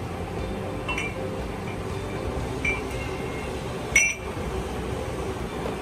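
Light metallic clinks of a steel flange plate and its screws being fitted against a machining center's spindle flange face, three short ringing clinks with the loudest about four seconds in. Under them runs a steady machine-room hum.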